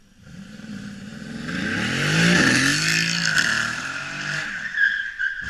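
Mercedes-AMG GT sports car drifting: the engine revs up and down while the rear tyres squeal and smoke, building to its loudest about two seconds in and easing off toward the end.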